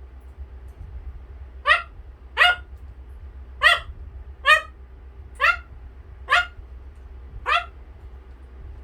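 A parrot imitating a dog's bark: seven short, sharp woofs, each rising in pitch, about one a second and loosely in pairs.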